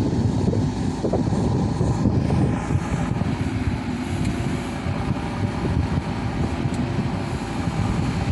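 Diesel engine of a JCB backhoe loader running steadily under work as a low rumble.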